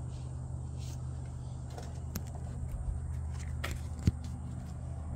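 Steady low hum with a few small clicks and knocks of a phone being handled, the loudest knock about four seconds in.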